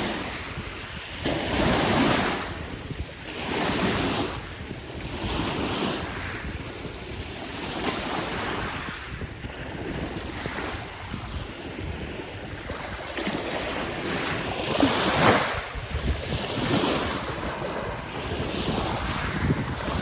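Sea waves breaking and washing up a fine-pebble beach, the surf swelling and falling every couple of seconds, the loudest wave about three-quarters of the way through. Wind buffets the microphone with a low rumble underneath.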